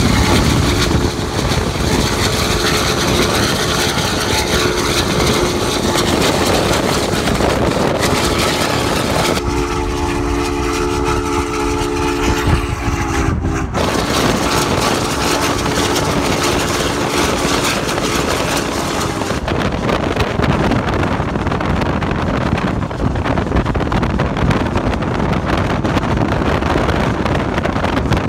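Union Pacific 844's chime whistle blowing in long, steady blasts, a chord of several low tones, broken briefly about 13 seconds in and stopping about 19 seconds in. Under it, steady wind and road noise from the car pacing the 4-8-4 steam locomotive.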